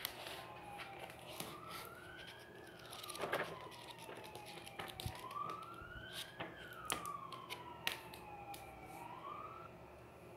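Faint siren wailing, its pitch slowly rising and falling over and over, with rustles and ticks from a book's pages being handled; the loudest rustle comes about three seconds in.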